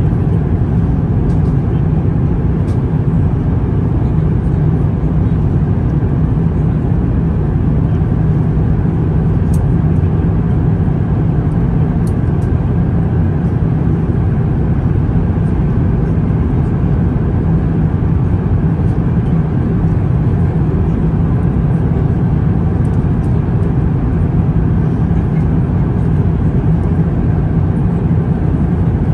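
Airbus A350-1000 airliner cabin in flight: a steady, deep rush of airflow and engine noise that does not change.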